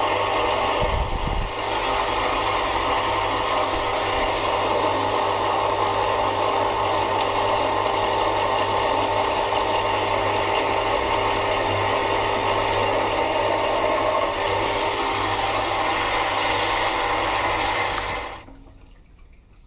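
Mini lathe running with its chuck spinning while turning an aluminium workpiece: a steady motor hum with a constant tone and a wide hiss. The sound falls away sharply near the end.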